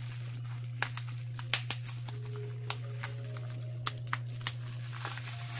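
Plastic bubble wrap crinkling in sharp, irregular crackles as hands handle and unwrap a wrapped item, over a steady low hum.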